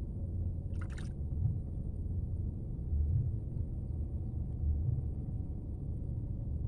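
Wind buffeting the microphone as a steady, gusty low rumble, with a brief hiss about a second in.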